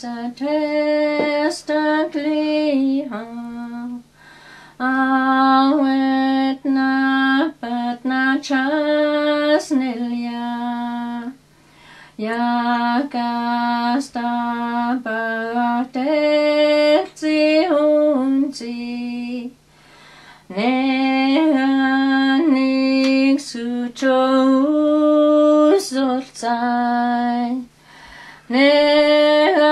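A woman singing a hymn in the Dakelh (Carrier) language, unaccompanied, in long held notes. The singing falls into phrases with short breaks for breath between them.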